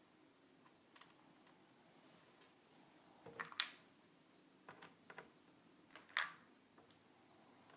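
Faint, scattered clicks and taps of a screwdriver and small plastic and metal parts as a laptop is taken apart, a few at a time, the loudest about three and a half and six seconds in.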